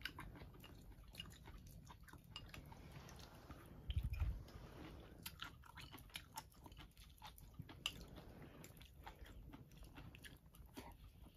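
A person eating: faint chewing, with small scattered clicks of chopsticks against a porcelain bowl and a low thump about four seconds in.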